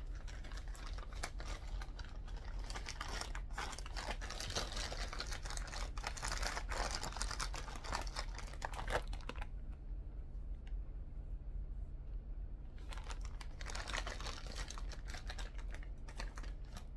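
Packaging rustling and crinkling, with many small clicks of parts and wrapping being handled. It breaks off for about three seconds about ten seconds in, then resumes. A steady low hum runs underneath.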